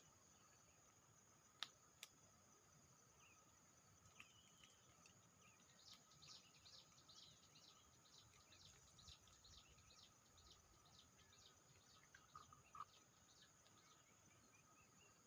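Near silence: faint outdoor ambience with a run of quick, faint chirps through the middle and two soft clicks near the start.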